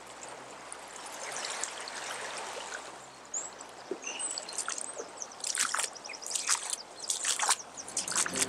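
Fast-flowing floodwater rushing steadily over a flooded riverside meadow. From about four seconds in, irregular splashing as wellington boots wade through the water.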